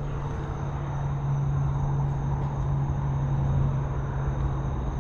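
A steady low hum, like a running engine or motor, with a faint steady high whine above it.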